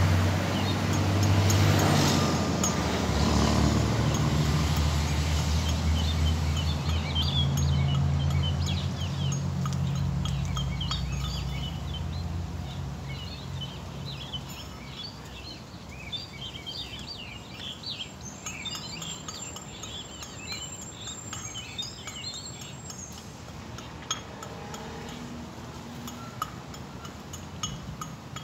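A motor engine running close by with a steady low hum, fading away after about twelve seconds; birds then chirp for several seconds.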